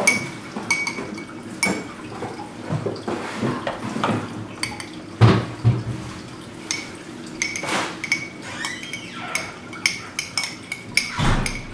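Metal spoon clinking and scraping against a small glass measuring cup as melted soap base is scooped and poured into a mold. Scattered sharp clinks, some ringing briefly.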